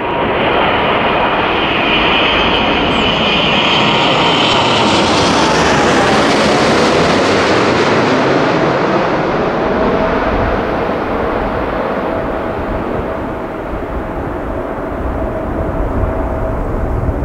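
Airbus A380-861 with four Engine Alliance GP7200 turbofans on landing approach, passing low overhead: a loud jet rush with high fan whines as it nears. It is loudest and brightest about five to seven seconds in, then the whine drops in pitch and the sound settles to a lower rumble as it moves away.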